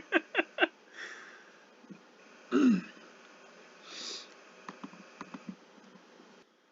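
A person's breathy sniffing and wheezing sounds, with one short, low throaty sound that falls in pitch about two and a half seconds in, the loudest moment.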